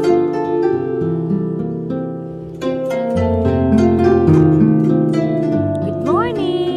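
Background music of plucked, harp-like string notes over sustained low notes, with a short sliding tone near the end.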